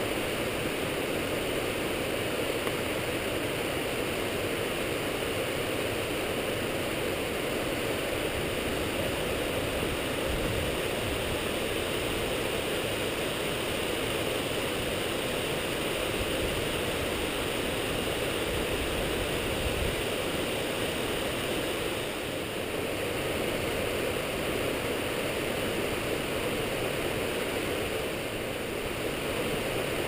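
Waterfall rushing steadily as it cascades down a sloping rock face.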